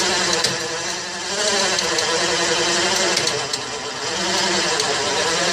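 12-volt ATV winch on a pickup truck crane running under heavy load, reeling in cable to lift a stone of several hundred pounds. Its steady whine wavers in pitch and loudness as it strains.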